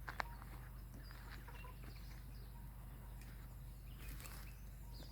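Faint handling noises as a sick ewe is dosed by mouth with dissolved magnesium: a sharp click near the start, then soft scattered clicks and rustles, with faint bird chirps.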